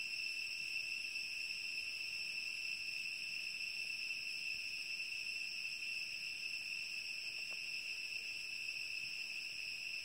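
Cicadas singing: one steady, unbroken high-pitched drone.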